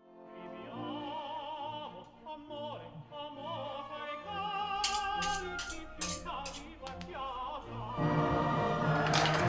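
Operatic singing with strong vibrato over orchestral music, fading in from silence. From about five seconds in, a run of sharp knocks or clicks joins the music, which swells louder about a second before the end.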